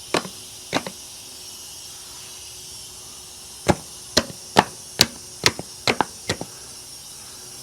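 Sharp knocks on a semi truck's fifth wheel as its locking jaw is being closed: two single strikes, then a quicker run of about eight. The jaw does not close.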